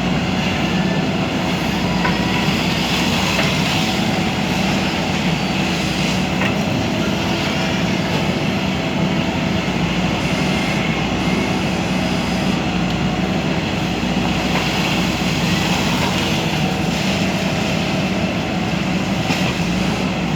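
JCB backhoe loader's diesel engine running steadily under working load, with an even hum.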